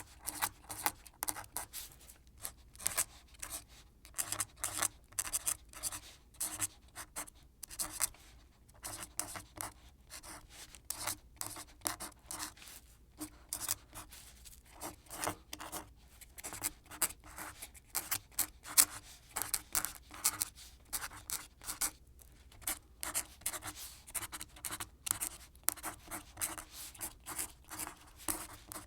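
Quill pen scratching across paper in quick, irregular strokes, several a second, with short pauses between groups of strokes.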